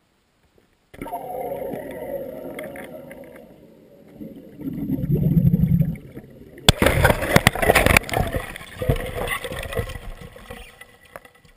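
Firecracker exploding under the ice of a frozen puddle, heard through an underwater camera. A rushing sound and a low rumble build first. A sudden sharp blast comes about two-thirds of the way through, followed by several seconds of rapid knocks and crackles of churning water and ice that die away.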